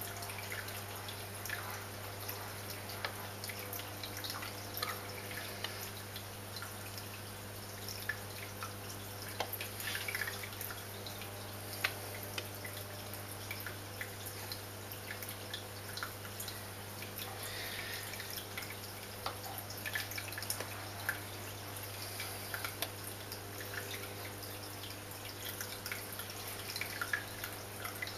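Aquarium water trickling and dripping at the surface with many small irregular splashes, over a steady low hum from the tank's filter running.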